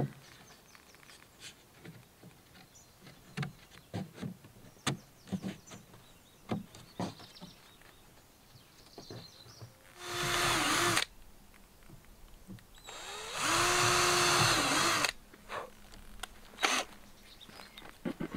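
Cordless drill driving screws into tongue-and-groove cladding boards: two runs, about one second and about two seconds long, its motor whine dropping in pitch as each run ends. Before them, scattered light knocks and clicks of boards and tools being handled.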